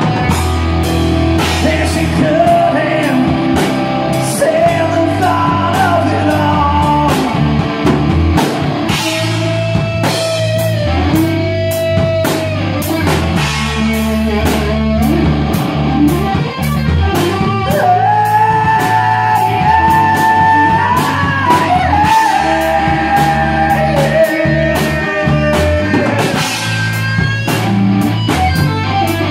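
Rock band playing: electric guitar, bass and drum kit, with a sung melody over a steady drum beat.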